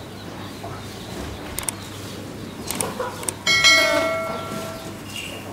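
A metal bell struck once about three and a half seconds in, ringing with several clear tones and fading over about a second and a half. A few light clicks come before it.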